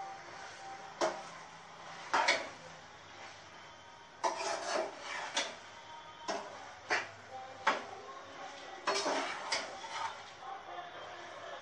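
Metal skimmer scraping and knocking against a metal cooking pot as sliced ridge gourd and mince are stirred, in repeated irregular strokes roughly once a second.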